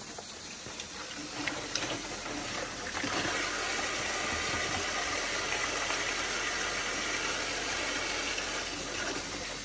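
Kitchen tap turned on and running, starting about three seconds in, as hands are washed at the sink after handling raw chicken; a few small clatters before it.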